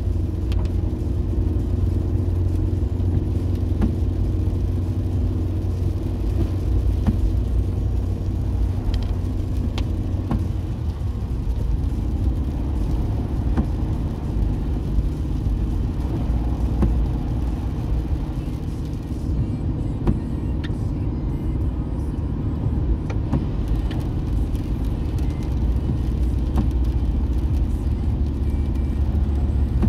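A car being driven, heard from inside the cabin: a steady low rumble of engine and tyres on a wet road, with a few faint clicks.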